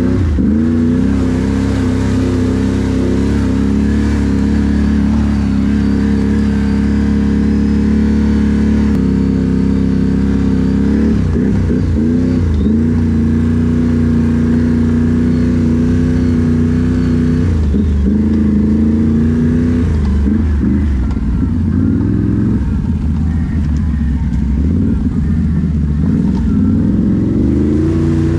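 Can-Am Renegade XMR 1000 ATV's V-twin engine running at a steady, loud throttle. Its pitch drops and climbs back several times as the throttle is eased off and reapplied, most often in the last third.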